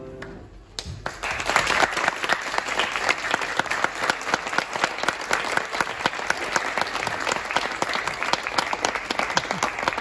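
The choir's last sung chord dies away, and about a second in the audience breaks into applause that continues steadily as dense, rapid clapping.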